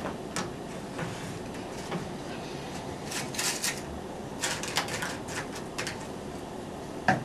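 Crisp tortilla chips crackling and rustling as they are handled and laid out on a plate, in two clusters of quick crackles about three and five seconds in.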